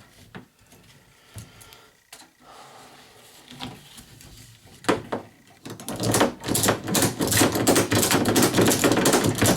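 A few scattered knocks, then from about six seconds in a loud, dense clattering rattle of hard objects being handled.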